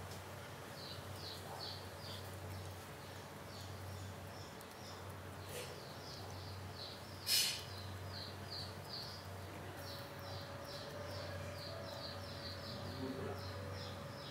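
Small birds chirping in short, quick, repeated calls over a low steady hum, with one louder sharp call about seven seconds in.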